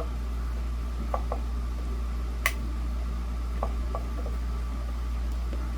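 Small clicks and taps from the plastic parts of a Holmes Blizzard desk fan being handled, with one sharper click about halfway through, over a steady low hum.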